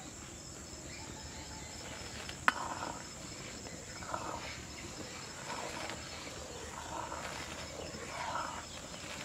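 A steel ladle clinks once sharply against a metal wok, then soft splashing and scraping comes in short bursts every second or so as hand-cut rice-flour pitha is dropped into boiled milk syrup and stirred. A steady high insect hum runs underneath.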